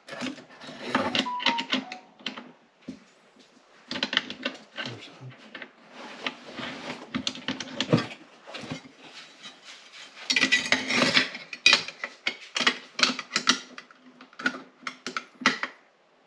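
Metal rifle parts being handled during reassembly: an uneven run of clicks, clinks and knocks, densest and loudest around ten to twelve seconds in.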